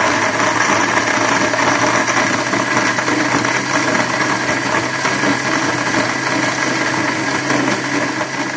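National countertop blender running steadily at speed, its motor whirring as it blends bananas, dates, cream and milk into a shake.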